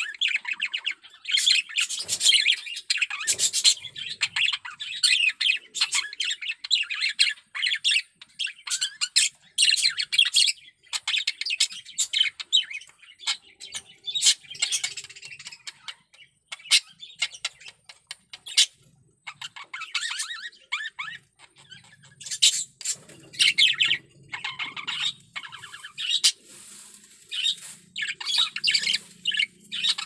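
Male budgerigar warbling and chattering almost nonstop, a dense run of rapid chirps, squawks and trills with only brief pauses: the courtship chatter of a cock budgie in strong breeding condition.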